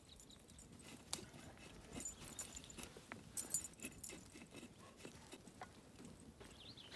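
Faint, scattered light clinks and small metallic jingles, with a few soft knocks.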